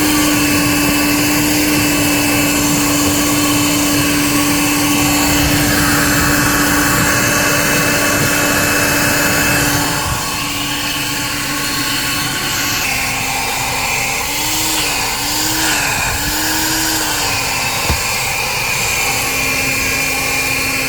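1980s Bon Aire 1-gallon wet/dry shop vac running with a steady motor whine and rushing air. Partway through its pitch drops slightly, then wavers up and down three times before settling.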